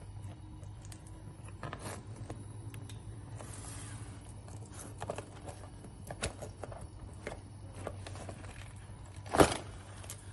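Cardboard carton being handled and its flaps tucked shut: light scraping, rustling and small clicks of the card over a low steady hum, with one sharp knock about nine seconds in.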